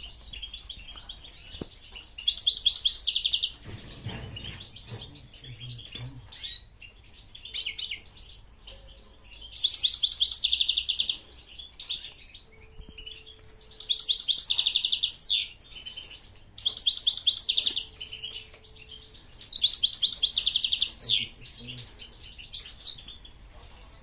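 A caged songbird singing in five high phrases of fast trilled notes, each a second or two long, with short pauses between them.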